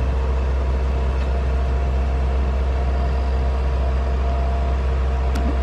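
Large diesel engine of a 550-tonne Tadano AR5500M mobile crane running steadily, a deep even drone with a faint steady whine above it.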